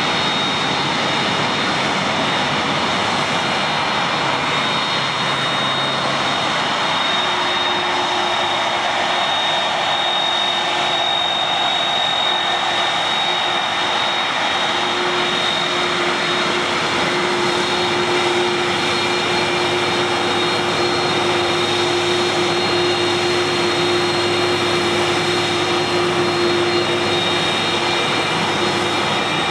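Airbus A300-600's twin turbofan engines running at taxi power: a steady jet roar with a high whine. A lower hum comes in about seven seconds in and grows stronger from about fifteen seconds, as the airliner turns toward and past the listener.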